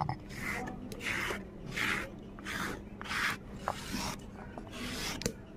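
Stone roller rubbed back and forth over a flat grinding stone (sil-nora), grinding wet spice paste: a rasping rub repeating about every two-thirds of a second. Near the end the paste is scraped off the stone by hand.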